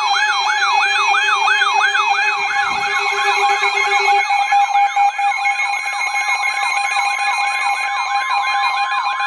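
A weather radio's electronic siren alarm: a loud tone warbling up and down about three times a second over steady tones, one of them the NOAA Weather Radio warning alert tone that comes before a warning message.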